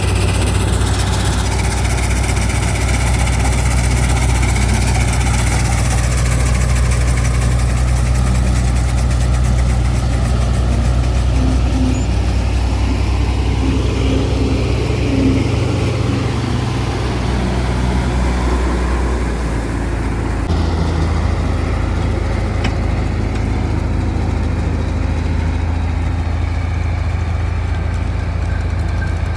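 Combine harvester's diesel engine running steadily with a low, constant hum. About two-thirds of the way through, the engine note drops slightly and carries on.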